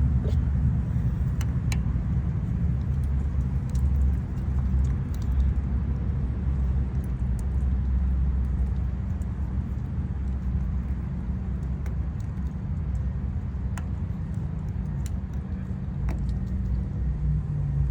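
Steady low hum of an idling vehicle engine, with a few faint metallic clicks from a Lishi pick working the wafers of a Honda lock.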